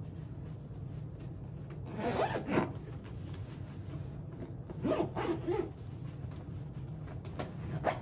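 Suitcase zipper being pulled shut in two short runs, about two seconds in and again around five seconds, with a brief click near the end.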